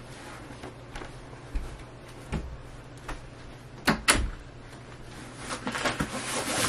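Cardboard shipping boxes being carried and handled: scattered light knocks and thuds, with two sharp knocks close together about four seconds in, then rustling and scraping near the end as the boxes are set down.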